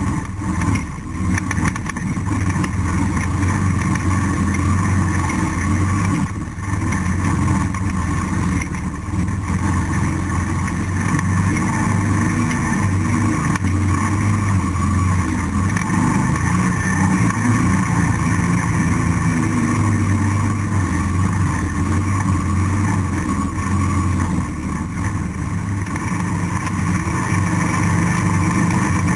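ATV engine running steadily under way, heard from on board the quad, with brief dips in the engine note near the start and about six seconds in.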